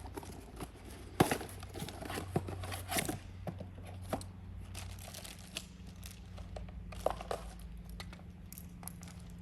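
Packaging being handled and torn open: crinkling and tearing with scattered sharp clicks and knocks, the sharpest about a second in.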